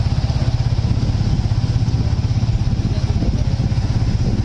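Motorcycle engine running close by at low speed, a steady, fast low pulsing.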